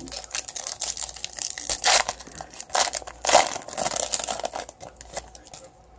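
Foil wrapper of a 2017 Certified football card pack being torn open and crinkled by hand: a dense run of crackling rips, loudest about two and three and a half seconds in, stopping about five seconds in.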